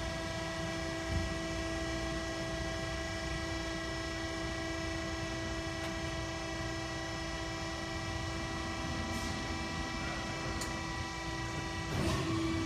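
Steady machine hum made of several fixed tones, with a faint click about a second in and a brief rustling noise near the end.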